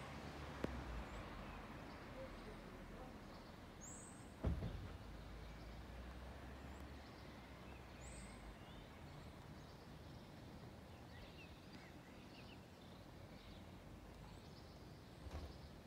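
Faint thunderstorm ambience: distant thunder, with a sudden crack about four and a half seconds in followed by a low rumble lasting a few seconds. A bird gives a short high chirp three times, about every four seconds.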